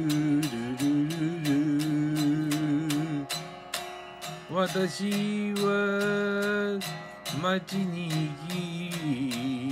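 A man singing a slow melody with long held notes and some vibrato, over an electric guitar strummed in a steady rhythm.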